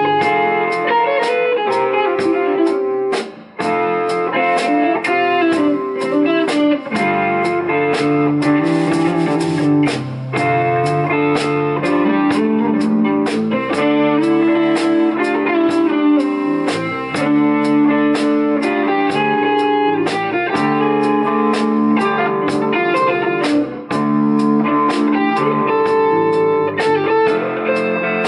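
Live rock band playing: two electric guitars over an electric bass and a drum kit, with the drums keeping a steady beat.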